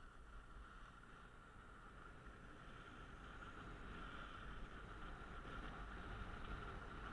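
Steady rushing of skiing downhill on a camera: wind on the microphone and skis sliding over the snow, growing slowly louder as speed builds.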